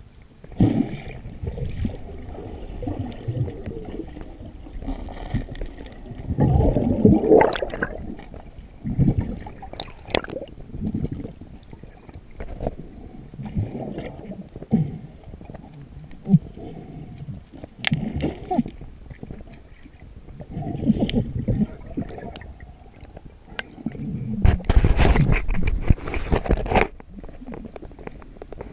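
Muffled underwater water noise: bubbling and gurgling in irregular surges, with a longer, louder rush about 25 seconds in.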